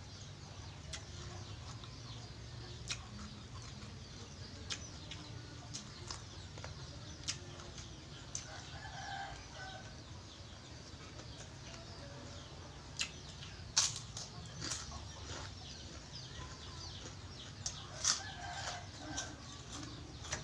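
A person chewing food, with scattered sharp crunches and mouth clicks. Chickens cluck in the background, briefly around the middle and again near the end.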